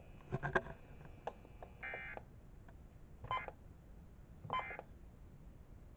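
Faint short electronic beeps: a buzzy tone about two seconds in, then two shorter beeps a little over a second apart.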